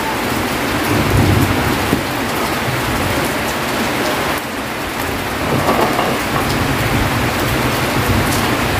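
Rain falling steadily, a loud even hiss.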